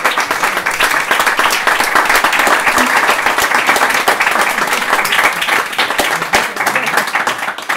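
Audience applauding with dense, steady clapping after a poem reading.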